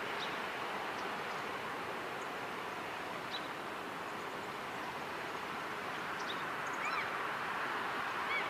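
Steady outdoor background hiss with a few faint, short, high calls scattered through it, two of them near the end.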